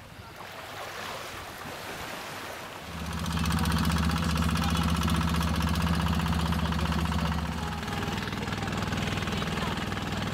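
Soft wash of water at first, then about three seconds in a longtail boat's long-shaft engine comes in loud and steady, driving the boat along. Its note shifts slightly about eight seconds in.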